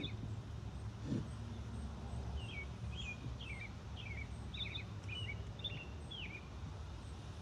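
A small songbird sings a quick run of short, sliding chirps over a steady low rumble of wind noise. There is a brief low thump about a second in.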